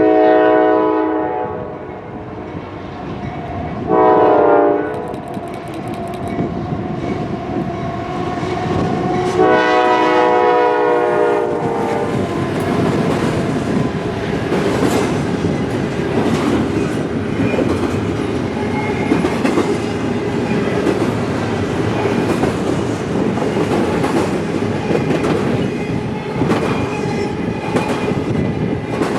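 Diesel freight locomotive horn sounding a long blast, a short blast, then a longer blast, followed by a long intermodal freight train rolling past with a steady rumble and wheels clicking over the rail joints.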